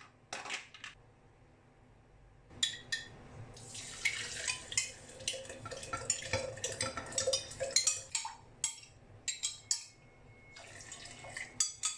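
Sesame seeds, rice and liquid poured into the plastic jug of a Xiaomi high-speed blender, a dense pattering of clicks over splashing. A few plastic clicks as the lid comes off come first, and a second, quieter pour of water comes near the end.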